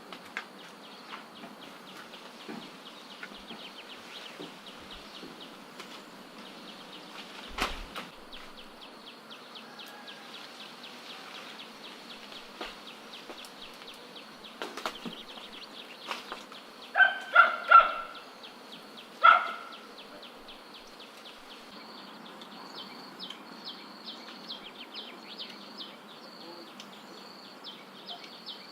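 Insects chirping in a fast, even pulse over a steady outdoor hiss, with a sharp knock about eight seconds in. Past the middle come four short, loud cries in quick succession.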